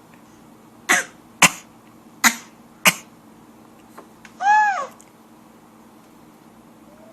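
Coughs traded between an adult and a baby: four short coughs in the first three seconds, then a brief high-pitched vocal squeal that rises and falls, from the baby.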